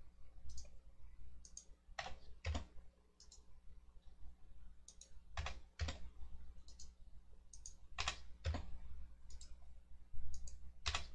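Computer mouse and keyboard clicks: sharp separate clicks every second or so, several in pairs about half a second apart, with lighter ticks between them, over a faint low hum.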